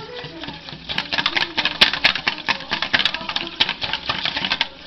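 Wire whisk beating curd in a stainless steel bowl: rapid, irregular clicking of the wires against the metal as the lumps are beaten out.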